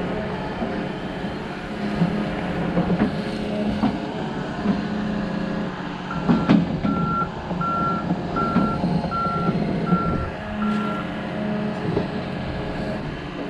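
Hydraulic excavator's diesel engine running steadily, with its warning alarm beeping seven times, evenly spaced, starting about halfway through. Several clunks come near the first beeps.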